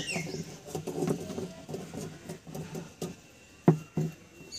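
Coconut coir pieces being pressed and tucked into an aluminium wire frame: rustling and scratching of fibre against wire, with light taps and one sharp knock near the end.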